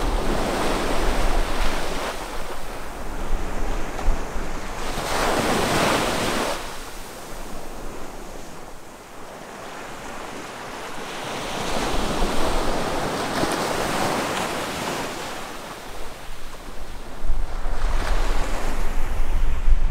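Ocean surf breaking and washing up a sandy beach, swelling and fading as the waves come in, loudest about five seconds in. Wind buffets the microphone at the start and again near the end.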